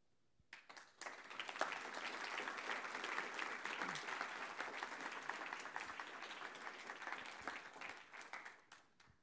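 An audience applauding. A few scattered claps come first, then steady applause from about a second in, which dies away near the end.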